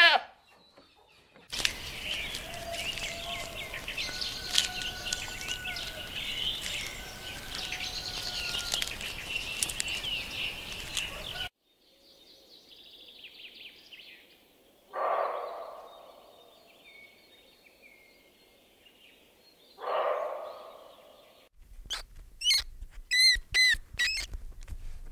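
A flock of birds chirping and calling densely for about ten seconds. After a cut come two short, rough calls about five seconds apart, and near the end a quick run of sharp, high squeaks.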